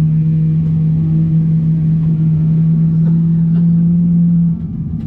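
Steady low drone of one held tone over a rumble inside the cabin of a taxiing Boeing 777-300ER; the tone drops away about four and a half seconds in.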